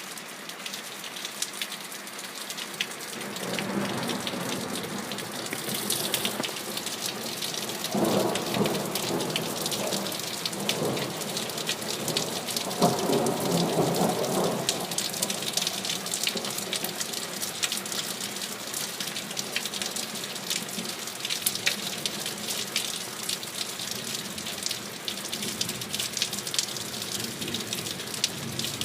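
Steady rain falling and pattering on surfaces, with thunder rumbling in the distance in several low swells, the longest between about 12 and 15 seconds in, then fading to rain alone.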